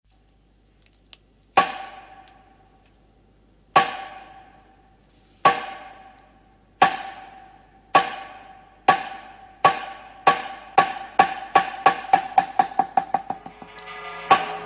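Sharp wooden knocks in the intro of an instrumental beat, each with a short ringing tail. They begin about two seconds apart and speed up steadily into a quick roll, with softer music starting to swell under them near the end.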